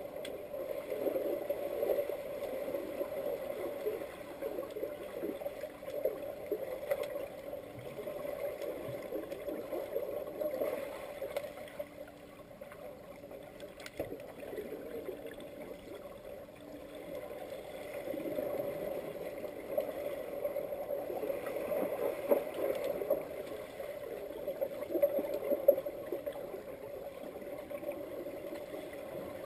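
Muffled underwater churning and splashing of pool water stirred by swimmers kicking with fins and diving, heard through an underwater camera, rising and falling in strength with a few faint clicks.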